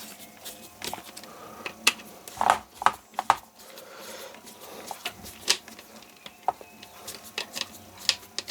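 Screwdriver working small screws out of a little plastic motor housing: scattered light clicks, taps and scrapes of metal on screw heads and plastic.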